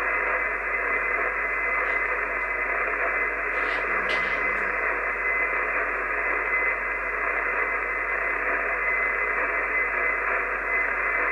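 Steady hiss of HF band noise from an Icom IC-751 transceiver's speaker, tuned to 6516 kHz single sideband with no station transmitting, plus a faint steady whistle in the hiss.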